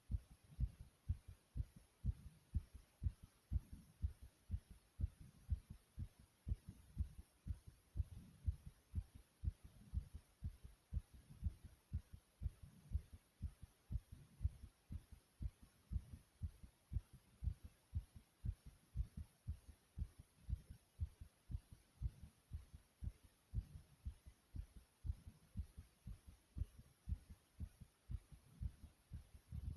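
A person's heart beating fast after exercise: a quick, regular rhythm of low thumps.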